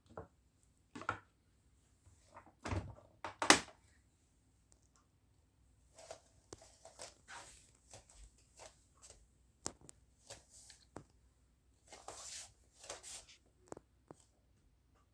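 Plastic toy aeroplane playset pieces being handled: a string of irregular light clicks and knocks, with one sharp knock about three and a half seconds in, and a busier run of small taps and rattles through the second half.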